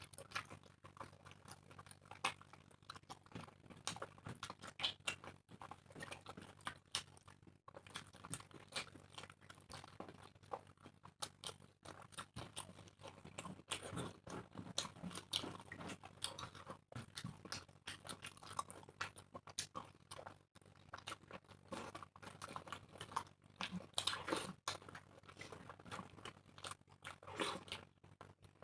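People chewing and biting mouthfuls of puri and egg curry: irregular wet mouth clicks and soft crunches, over a faint steady low hum.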